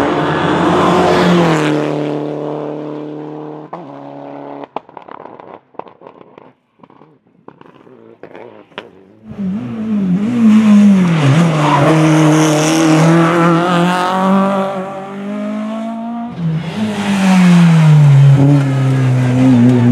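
Rally car engines at high revs on a tarmac stage, the pitch falling and rising through gear changes. A quieter stretch in the middle holds a few sharp cracks, then a loud engine comes in about nine seconds in and another about sixteen seconds in, its pitch dropping then holding steady.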